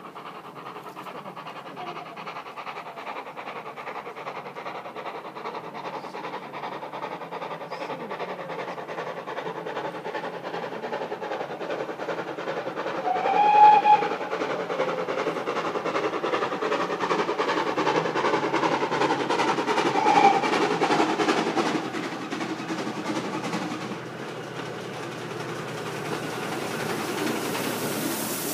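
GWR 6400-class pannier tank locomotive steaming closer with its train, growing steadily louder. It sounds its whistle twice: a blast of about a second roughly halfway through and a shorter one some seven seconds later. The sound then drops back over the last few seconds as the train runs on.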